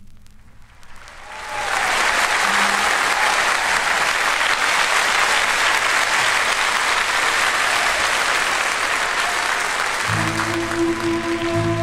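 Audience applause that swells up over the first couple of seconds and then holds steady. About ten seconds in, the song's instrumental introduction starts under the clapping with sustained low notes.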